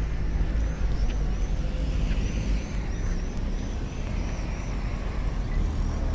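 Car traffic passing on a city street, heard as a steady low rumble, with a faint high chirp repeating two or three times a second.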